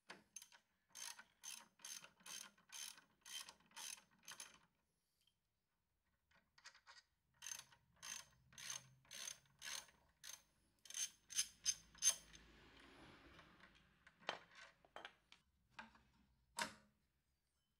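Ratchet wrench with a 12 mm socket clicking as it backs out the bolts holding a scooter's front brake caliper. There are two runs of steady clicking, about three clicks a second, then a few single clicks near the end.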